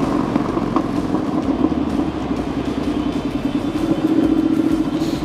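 Triumph Bonneville Bobber's 1200 cc parallel-twin engine running steadily at cruising speed in fourth gear, through a cross-pipe exhaust with its catalysts still fitted.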